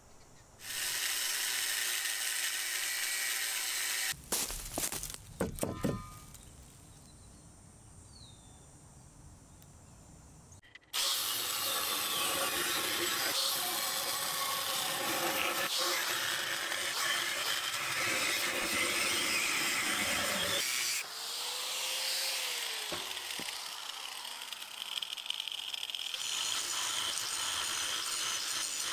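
Angle grinder cutting and grinding rusty steel angle iron, a steady loud whine of disc against metal. A few knocks come around five seconds in, and about two-thirds of the way through the grinder briefly winds down before cutting again.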